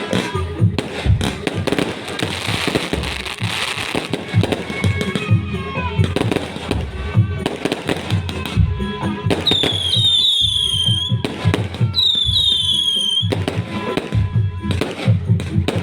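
Fireworks going off in a string of sharp bangs and crackles. About ten seconds in come two whistling fireworks, each a falling whistle lasting about a second and a half.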